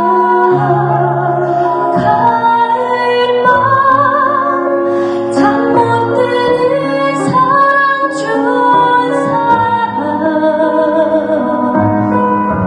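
Music with a woman singing over instrumental accompaniment.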